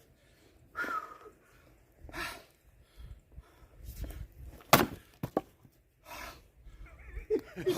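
A man breathing hard in several separate heavy exhalations. About halfway through there is a single sharp knock, the loudest sound, followed by a few small clicks, and a short bit of voice near the end.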